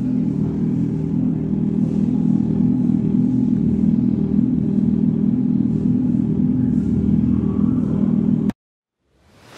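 Revolt RV400 electric motorcycle's artificial engine sound played through its onboard speaker: a steady, idle-like rumble while the bike stands still. It cuts off suddenly near the end.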